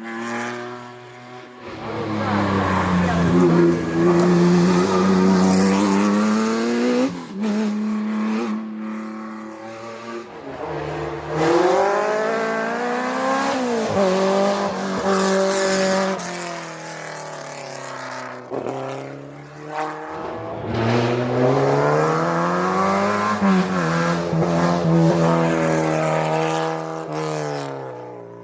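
Historic racing cars driven hard up a hillclimb course, engines revving up and falling back in pitch again and again as they accelerate and come off the throttle.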